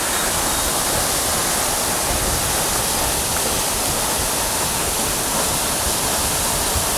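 Steady rushing of a mountain stream's waterfall, an even, unbroken roar of falling water.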